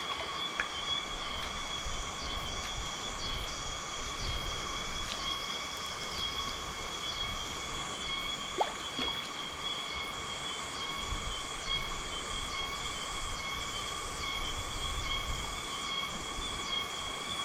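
Steady, high-pitched chorus of insects calling, with rhythmic pulsed calls repeating about once or twice a second. Beneath it runs a low uneven rumble.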